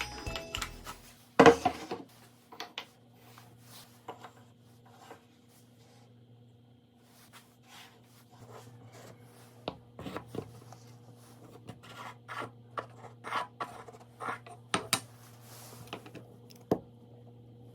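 Wooden workpieces being handled on a workbench: scattered light knocks, taps and rubbing, with one loud knock about a second and a half in and a run of sharper taps in the second half, over a steady electrical hum.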